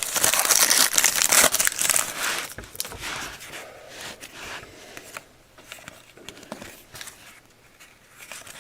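A trading card pack's wrapper being torn open and crinkled, loudest over the first two and a half seconds, then quieter crinkling and light clicks as the cards are handled.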